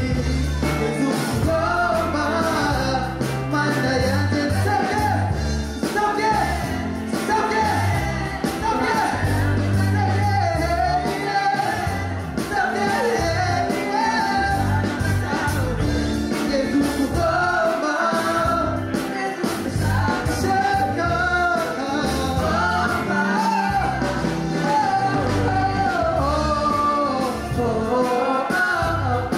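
Live amplified music: a male lead singer and female backing singers singing into microphones over an accompaniment with a heavy, pulsing bass.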